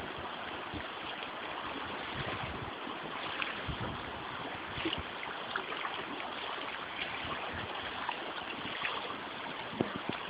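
Steady rush of a river flowing over a shallow gravel riffle, with a few light clicks scattered through.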